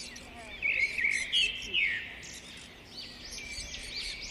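Many caged birds chirping and calling together in an overlapping chorus of short, repeated chirps, with a louder burst of chirps close by about a second in.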